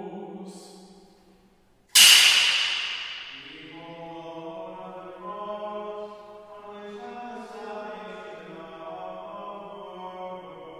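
A held chanted note fades out. About two seconds in comes a single sharp knock that rings out briefly, then slow liturgical chant singing with long held notes begins.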